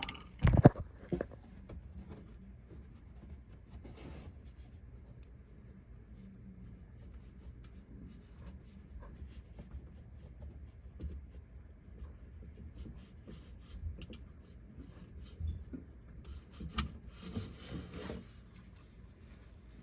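Handling noises from work on the car's underside: light rubbing and scraping with scattered clicks, a sharp knock about half a second in, and short rustling bursts a few seconds in and near the end.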